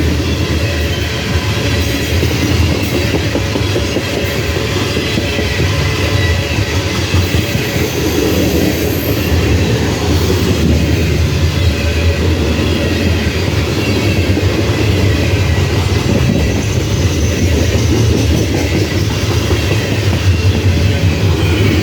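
Coal train of loaded hopper cars rolling past steadily, a continuous rumble with the clatter of wheels over the rails.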